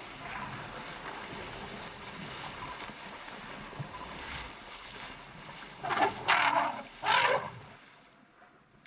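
River water splashing and sloshing as young elephants play in it, with three loud splashes about six to seven and a half seconds in.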